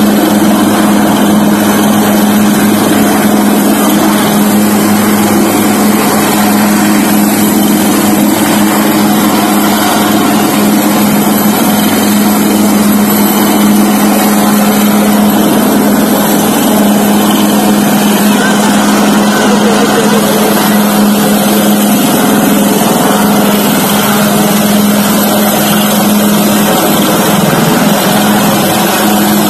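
Military helicopter hovering low, its rotor and turbine engine making a loud, steady drone with a strong low hum.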